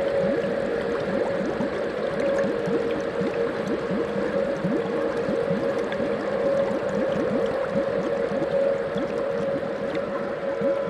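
Water bubbling and gurgling: many small rising blips close together, over a steady hum of held tones.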